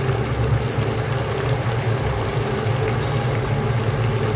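Pot of chicken and bottle gourd stew simmering on a gas stove, with small bubbling ticks over a steady low hum.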